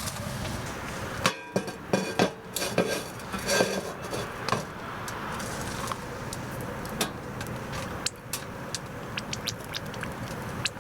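Metal cookware and utensils clinking and knocking, several sharp hits with brief ringing in the first half, then sparser light ticks.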